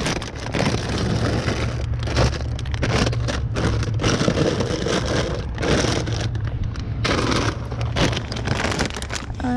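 Rustling and crinkling of plastic snack wrappers and packets being handled and stacked on the shelves of a small cabinet, over a steady low hum.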